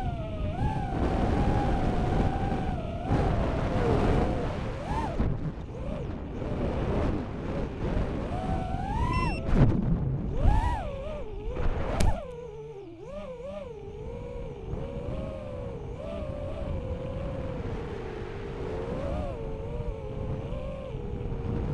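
Racing quadcopter's four Racerstar BR2306S 2700 kV brushless motors spinning DAL 5045 three-blade props, recorded by the onboard camera: a rising and falling whine that tracks the throttle through turns, with air rushing past. About twelve seconds in there is one sharp crack, and after it the whine runs quieter and more even.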